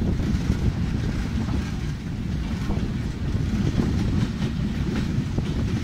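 Steady low rumble of a passenger train running at speed, heard from inside the carriage, with wind buffeting the microphone.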